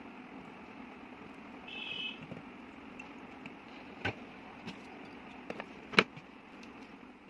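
Steady low background hum, with two sharp clicks about four and six seconds in and a brief high tone about two seconds in.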